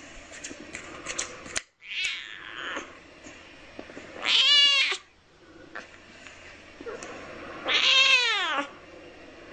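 Calico kitten meowing twice, about three seconds apart: two short, high calls that bend down in pitch.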